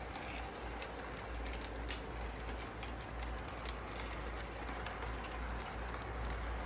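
Toy model train running on its track: a Santa Fe-painted diesel locomotive pulling freight cars, a steady rolling hum with many light clicks as the wheels pass over rail joints, under steady background noise.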